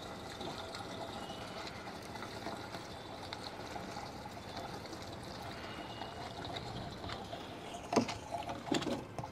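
Water being stirred by hand in a bucket to dissolve a powder: a soft, steady swishing. There are a couple of short knocks near the end.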